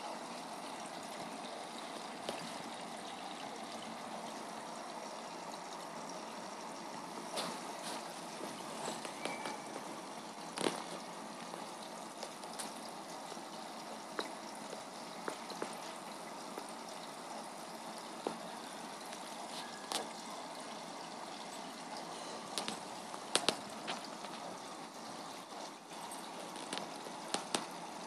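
Aquarium filter returning water into the tank: a steady trickle of falling water, with occasional light clicks.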